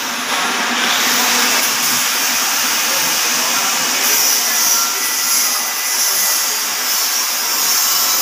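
Metal lathe running, its turning tool cutting a spinning metal workpiece held in the chuck: a steady, unbroken machining noise.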